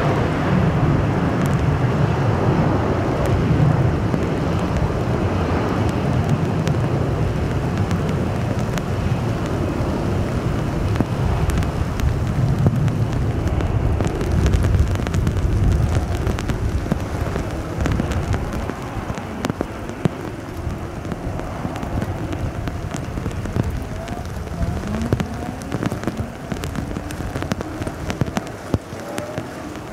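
Rain falling steadily with many small drop ticks, over the low rumble of a Boeing 737-800's CFM56-7B jet engines as the aircraft taxis on a wet runway. The rumble eases off through the second half, and faint rising tones appear near the end.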